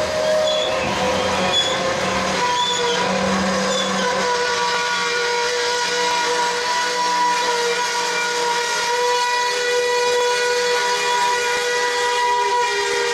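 Steel wheels of slowly rolling covered hopper cars squealing against the rail on a curve: several high, steady tones that waver slightly in pitch, over the rumble of the passing train.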